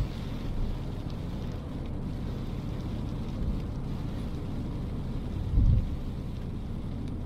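A car driving in heavy rain: a steady low rumble of road and engine noise with a faint hiss of rain, and a short low thump right at the start and again about five and a half seconds in.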